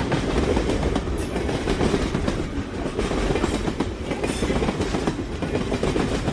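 Train running along the track: a steady low rumble with faint clacks from the wheels over the rails.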